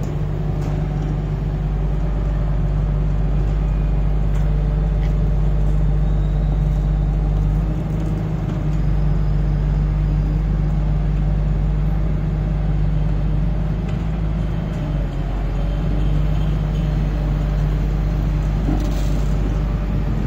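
Diesel engine of a Sunward rotary piling rig running steadily: a loud, even low drone.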